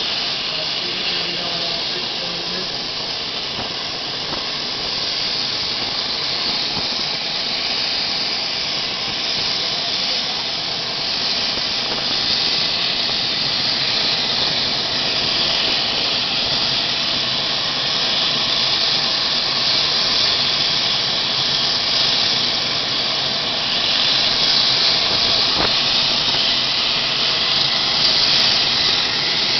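Transall C-160's Rolls-Royce Tyne turboprop engines running on the ground: a steady high turbine hiss that slowly grows louder.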